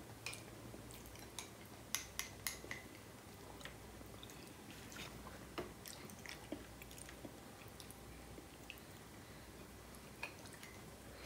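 Quiet eating of crème caramel: soft mouth sounds and scattered small clicks, most of them about two to three seconds in.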